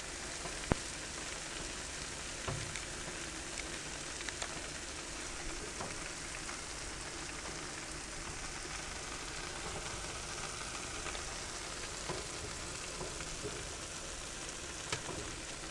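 Pepperoni-and-cheese-stuffed pie-crust fries sizzling on a metal baking sheet in a hot oven: a steady hiss with a few small pops, from melted cheese leaking out onto the pan.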